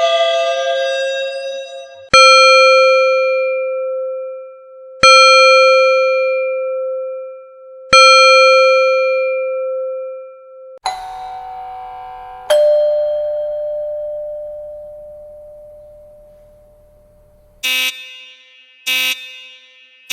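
A run of doorbell sounds. A chime is struck three times about three seconds apart, each stroke ringing out. Then a two-note ding-dong, high then low, decays slowly, and three short buzzing electronic rings come near the end.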